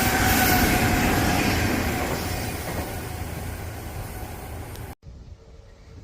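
An Odakyu Line electric train passing close by and pulling away, its running noise fading steadily over about five seconds. About five seconds in the sound cuts off abruptly, leaving a much quieter background with a faint steady hum.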